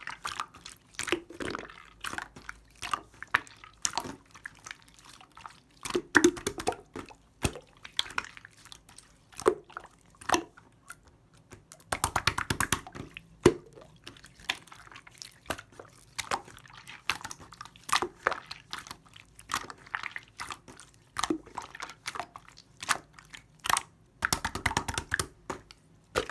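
Clear slime being squished and pressed by hand, making an irregular run of sticky wet clicks and small air-bubble pops, with denser bursts of popping now and then.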